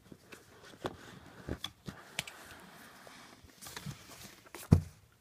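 Handling noise: scattered light taps and clicks of hands moving an iPad mini and its packaging, with one louder knock near the end.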